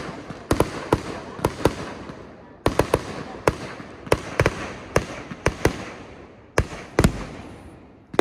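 Fireworks going off: an irregular string of sharp bangs, some in quick clusters of two or three, over a fading crackle, with the loudest bangs shortly before the end.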